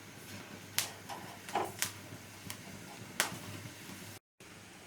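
A few sharp clicks and taps over a faint steady hum, with the sound cutting out completely for a moment near the end.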